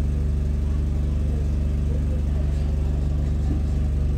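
Double-decker bus engine idling steadily while the bus stands still in traffic, heard from inside the upper deck as an even low hum.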